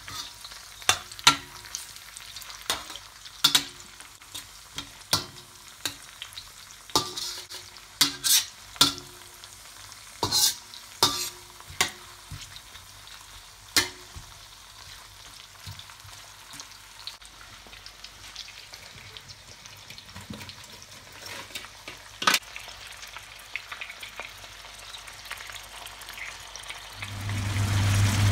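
Red onion, garlic and chili frying in hot oil in a stainless pan: a steady sizzle, with a metal spoon clinking and scraping against the pan many times in the first half. Near the end a steady low hum sets in.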